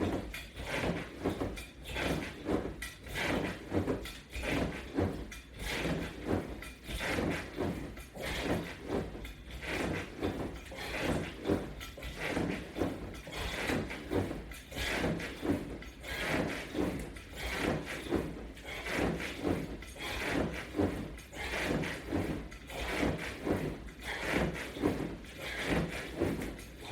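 Rhythmic knocking and rubbing from a workout on a resistance-band exercise system, a short stroke about three times every two seconds.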